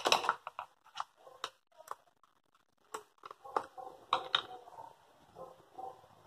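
Clicks and knocks of a hard plastic outboard throttle grip being handled and turned over in the hands, with a few taps as a small wrench is picked up. The loudest clicks come at the very start and about three to four and a half seconds in, then only faint scattered sounds follow.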